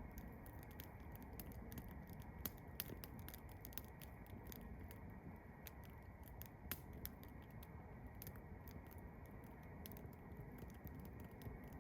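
Wood campfire crackling: faint, irregular sharp pops and snaps over a low steady background.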